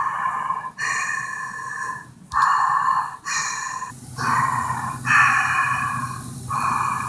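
A person making heavy, rasping Darth Vader-style breaths into the microphone, about seven long in-and-out breaths with short gaps between them.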